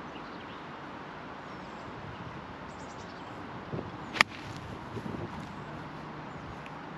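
A single sharp click of a golf club striking the ball, about four seconds in, over a steady outdoor hiss with faint bird chirps.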